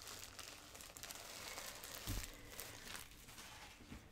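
Clear plastic bag crinkling and rustling as skeins of yarn are handled in it, with a low thump about halfway through.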